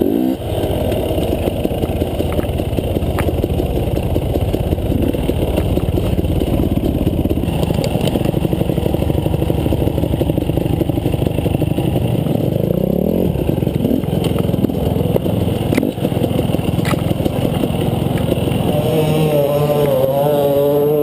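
KTM enduro dirt bike's engine running under load on a rough forest trail, its revs rising and falling with the throttle, with a marked climb in revs about two-thirds of the way through. Clatter and knocks from the bike bouncing over the rough ground come through now and then.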